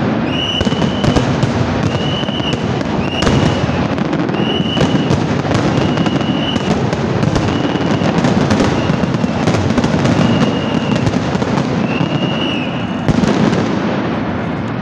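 Dense, continuous barrage of aerial firework shells bursting, many overlapping bangs and crackles with no gaps between them.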